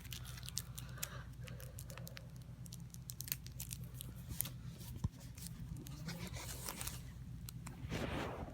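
Plastic shrink-wrap on a trading-card deck box crackling and crinkling as it is picked at and torn by hand, with a longer tearing rasp near the end.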